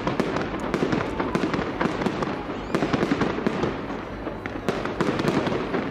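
Fireworks salute: many sharp bangs and crackling pops from bursting shells, coming thick and irregular with no pause.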